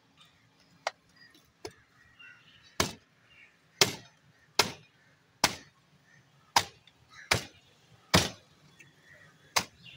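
Heavy cleaver chopping into a bovine head's bone and meat on a wooden block: about ten sharp chops, roughly one a second, the first two lighter than the rest.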